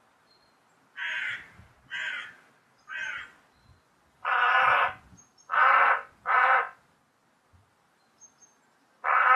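Crow cawing in harsh, repeated calls: three fainter caws about a second apart, then louder ones, two in quick succession, and another near the end.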